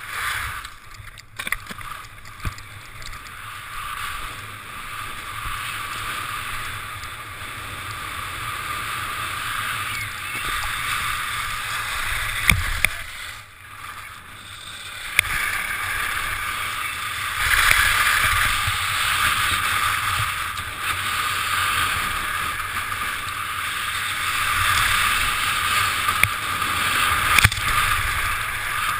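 Skis sliding and scraping over packed snow at racing speed, with wind rushing over an action camera's microphone: a steady hiss that swells and eases with speed and turns, broken by a few sharp knocks.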